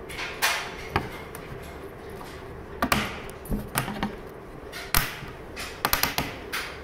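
Plastic wedge buttons being pushed by thumb into holes along the edge of a wooden furniture panel: a string of sharp clicks and knocks, some with a short scrape.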